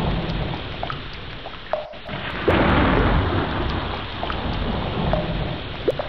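Rain and thunder: a dense steady downpour over a low rumble of thunder, with scattered single drops plinking into water, each rising in pitch. It drops out briefly about two seconds in and comes back louder.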